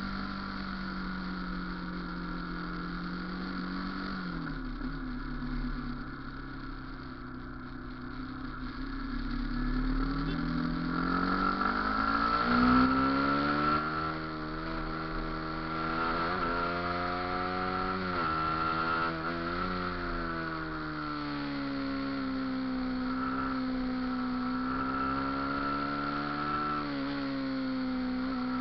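Motorcycle engine running under way. Its pitch falls about four seconds in and climbs again from about ten seconds, dips sharply three times in quick succession, then settles into a steady drone.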